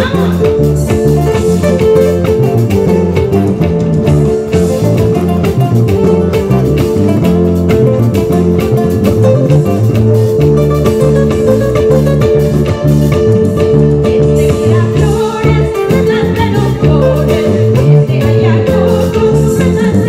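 Live band music: cutaway nylon-string acoustic-electric guitars playing over a bass line, with a woman singing into a microphone through the PA, her voice clearest in the second half.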